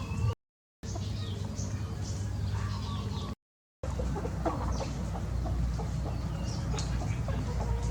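A flock of chickens clucking, with small birds chirping high over a steady low rumble. The sound cuts out completely twice for a moment, about half a second in and again after about three seconds.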